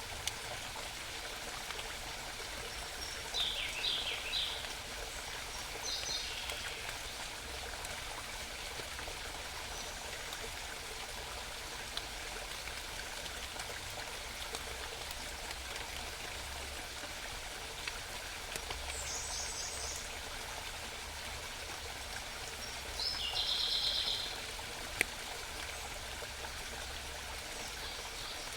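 Steady murmur of a small mountain stream, with short songs of small forest birds breaking in a few times: around four and six seconds in, again near nineteen seconds, and a brighter phrase around twenty-three seconds.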